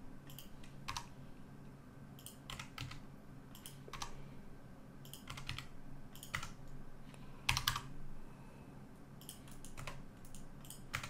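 Computer keyboard keys pressed one at a time at an irregular pace, a dozen or so separate clicks, over a faint steady low hum.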